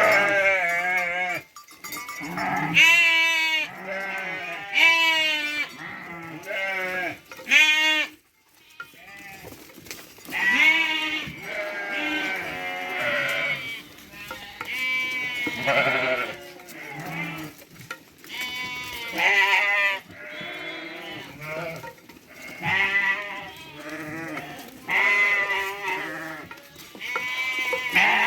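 A flock of sheep bleating, many calls one after another and often overlapping.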